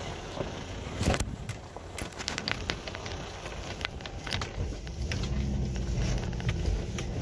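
4x4 off-road vehicle driving over a rough dirt track: a low engine and tyre rumble with scattered sharp knocks and rattles, the engine drone growing louder about five seconds in.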